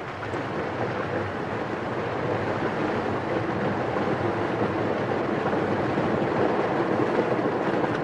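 Fast river current rushing through rapids in a narrow rocky gap: a steady rush of water with no distinct pitch, swelling slowly over the first few seconds and then holding.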